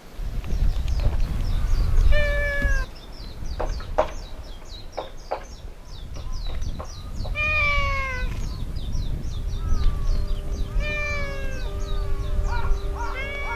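Domestic tabby-and-white cat meowing several times, each meow arching and falling in pitch, with wind rumbling on the microphone for the first few seconds.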